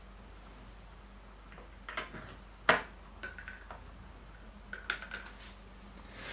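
Small metallic clicks and taps as a wire lead is clipped onto a metal can electrode, a handful of sharp clicks with the loudest about two and a half seconds in, two of them leaving a brief faint ring.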